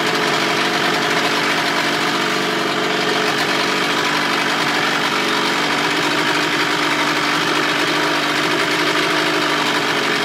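2000 Johnson 25 hp two-stroke outboard idling steadily with its lower unit in a test barrel of water, smoking heavily.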